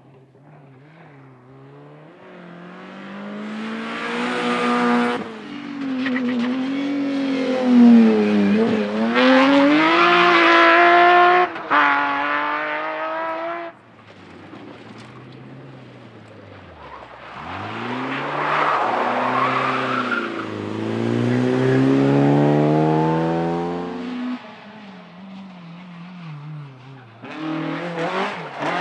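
Rally car engines driven hard at full throttle, one car after another. The pitch climbs and drops sharply with each gear change and lift-off. The sound breaks off abruptly several times as one car gives way to the next.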